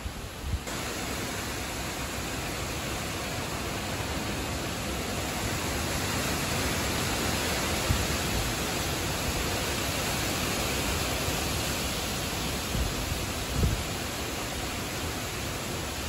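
Strong wind rushing through the leafy crowns of trees, a dense, steady rustle of foliage that swells a little toward the middle. A few low gusts buffet the microphone, the plainest near the end.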